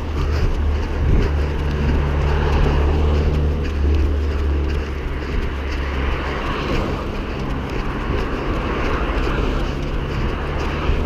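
An engine droning low and steady, dropping away about six and a half seconds in, over a steady rushing noise.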